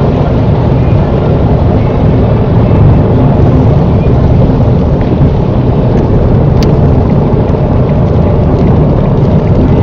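Steady car cabin noise at about 55–60 mph on a soaked road: engine and tyre noise with rain and spray on the car. There is one faint sharp click about two-thirds of the way through.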